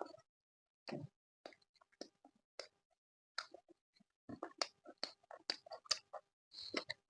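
Close-miked eating sounds: chewing with wet mouth clicks and smacks, coming irregularly and thicker after about four seconds in.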